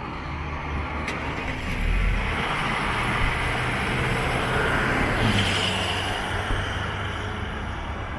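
Highway traffic: a vehicle passing by. Its road noise swells over the first couple of seconds, stays loudest through the middle and fades away in the last couple of seconds, over a low steady hum.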